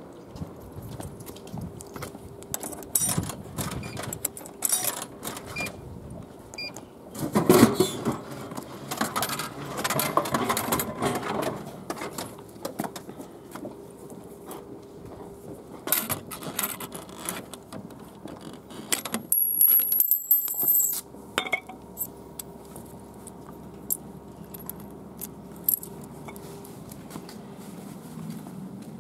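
Coins clinking into a drink vending machine, then a can dropping into the dispenser tray with a loud clunk about seven seconds in and rattling as it is taken out. Scattered clicks follow as the can is handled, over a faint steady hum.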